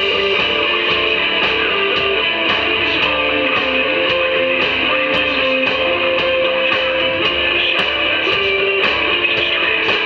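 Live rock band playing: sustained electric guitar and bass guitar notes over drums, with cymbal hits about twice a second.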